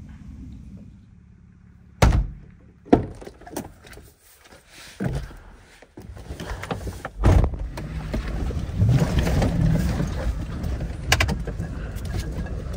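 Several separate thunks of a pickup truck's camper hatches and doors being shut. From about six seconds in, the truck's engine is running as a steady low rumble, with one heavier thunk about a second later.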